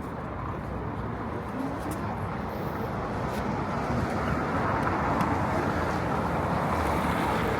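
City street traffic noise, a steady rush of passing cars that grows gradually louder.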